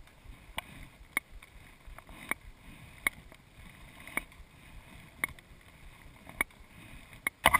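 Rope-rescue winch in an aerial tram cabin paying out line, giving a sharp click about once a second.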